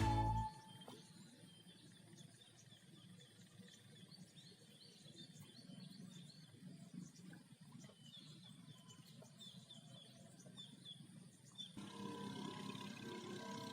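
Small birds chirping in short runs of quick high notes over a faint low background hum. About twelve seconds in, a louder steady sound with a mid-pitched tone comes in.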